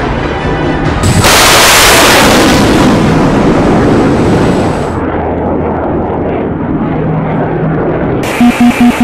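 Sound-effect rushing blast of a missile launch starting about a second in, fading into a muffled low rumble. Near the end a pulsing music beat comes in.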